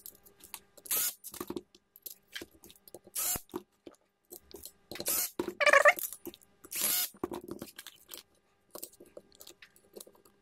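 Hands working on an inverter welder's circuit-board assembly in its metal frame: scattered clicks, taps and scrapes of parts and wiring being handled and fitted, with a brief pitched sound about halfway through.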